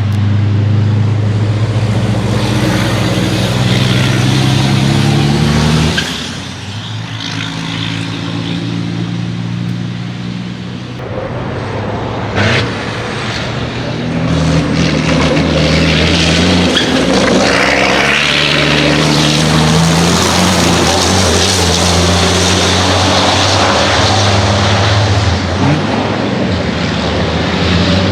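Race trucks' big diesel engines run hard on track, their engine notes stepping up and down in pitch as they pass. There is a brief sharp burst about twelve seconds in.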